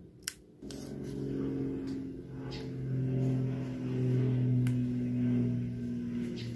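A single sharp snip of scissors through washi tape, then a motor vehicle's engine running with a steady low hum that swells through the middle.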